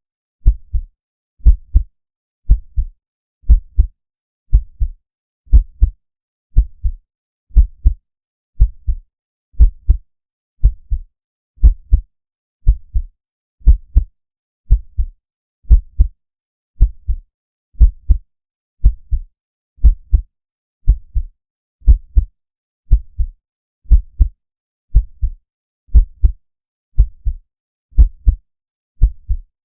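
Heartbeat sound effect: a slow, steady lub-dub of paired deep bass thumps, about one beat a second.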